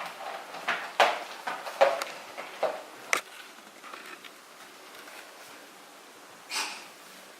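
A pet animal coughing: a fit of about seven short, sharp coughs over the first three seconds, then one longer noisy burst about six and a half seconds in.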